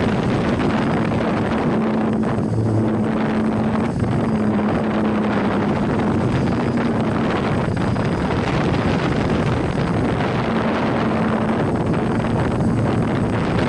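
Hexacopter drone's electric motors and propellers running steadily while it hovers, heard from its onboard camera as a constant rushing noise with a low hum that fades in and out.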